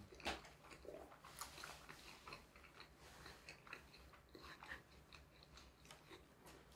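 Faint chewing: a man eating a mouthful of a rice bowl, with soft, irregular wet mouth clicks.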